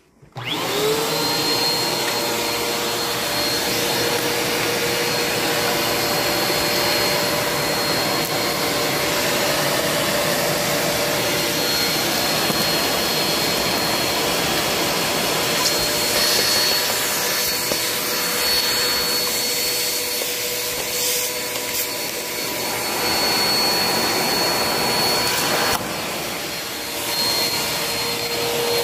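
Vacuum cleaner switching on, its motor whining up to speed within half a second and then running steadily with a rush of suction as a crevice tool works along a rug edge. The sound shifts in tone and briefly drops a couple of times as the nozzle moves, about twenty and twenty-six seconds in.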